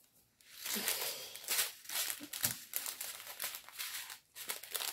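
Plastic bags crinkling and rustling as a strip of small diamond-painting drill sachets is handled. It starts about half a second in, with a brief pause near the end.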